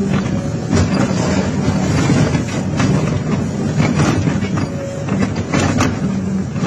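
Excavator's diesel engine running steadily while its hydraulic scrap shear cuts through a steel trailer frame, with several sharp cracks and crunches of metal giving way.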